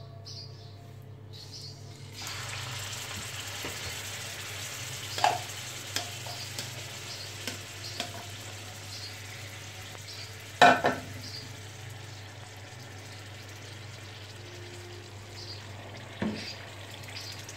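Yogurt-marinated chicken pieces frying in hot oil in a frying pan, a steady sizzle that starts suddenly about two seconds in. The pan is knocked a few times as the pieces are moved about, and the loudest knock comes about halfway through.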